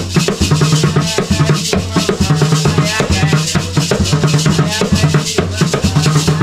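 Garifuna drums played by hand in a fast, steady rhythm: deep pitched drum tones repeat under a dense run of sharper strokes.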